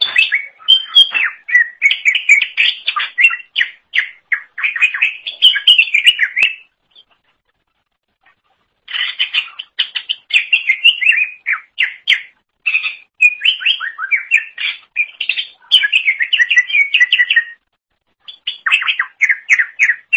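Cucak ijo (green leafbird) singing a loud, rapid, chattering song of quick notes. It comes in three bursts, with pauses of about two seconds and under a second between them.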